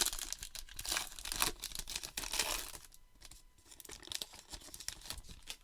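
A plastic baseball-card pack wrapper being torn open and crinkled, a dense rapid crackle for about the first three seconds, then lighter crinkling as the wrapper is handled.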